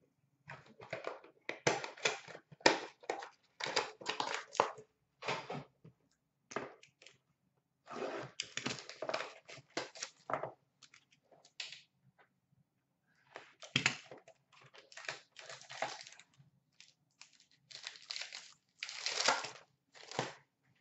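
Rustling, crinkling and tearing of a trading-card box and its packaging being opened by hand, in irregular bursts with short pauses.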